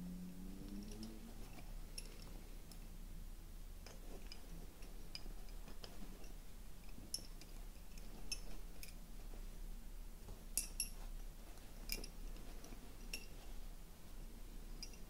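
Slim wooden Honiton lace bobbins clicking lightly against each other at irregular intervals as pairs are crossed and twisted on the lace pillow.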